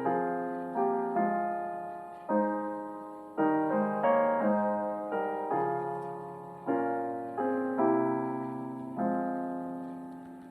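Slow, gentle piano music: sustained chords struck one after another, each fading away before the next.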